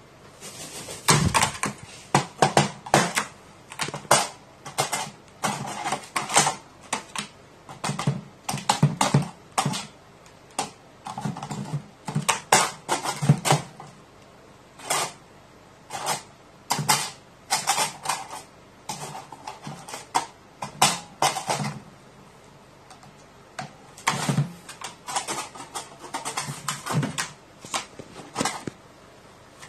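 A crow pecking at a small drum with a silicone-resin-repaired head: irregular clusters of sharp taps and knocks, some with a dull low thud, with short pauses between bouts.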